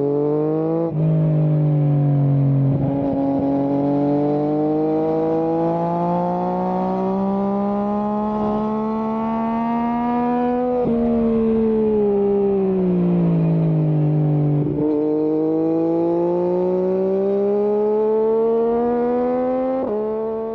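Yamaha MT-09's crossplane three-cylinder engine pulling hard under acceleration: its pitch climbs steadily for about ten seconds, sinks back over a few seconds, then climbs again, with a gear change near the end.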